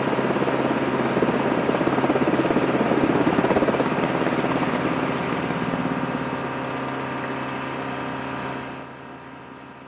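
HH-60G Pave Hawk helicopter flying past low with its twin turboshaft engines whining steadily over a fast beat from the main rotor. It is loudest about three seconds in, then fades as it moves away and falls off sharply near the end.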